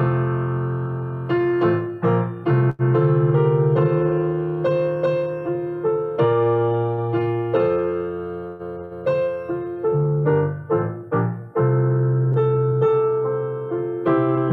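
Slow instrumental keyboard music: piano-like chords struck and left to ring, with the notes changing every second or so.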